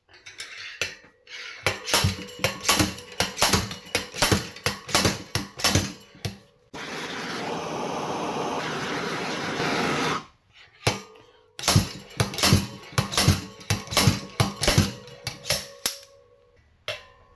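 Slide hammer on a bearing puller striking repeatedly, metal on metal at about three knocks a second, to pull a crusty old wheel bearing from a dirt bike hub. In the middle the knocking stops for a steady hiss of a hand torch heating the hub for about three seconds, then the hammering starts again.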